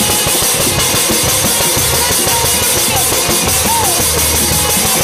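Loud music with heavy, pounding drumming.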